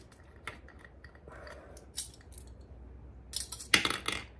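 A few faint metallic clicks from a pachinko machine's tulip being handled, then a quick cluster of sharp metallic clicks and clinks near the end as a steel pachinko ball is dropped through the tulip and it snaps open.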